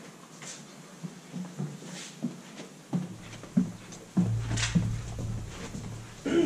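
A few scattered knocks and shuffles in a quiet room, then, about four seconds in, a louder low rumble of footsteps and clothing as a person walks close past the microphone, lasting about two seconds.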